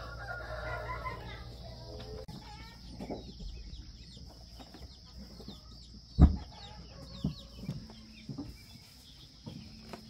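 Chickens clucking, loudest in the first couple of seconds, over a steady high hiss and scattered small chirps. A single sharp knock about six seconds in.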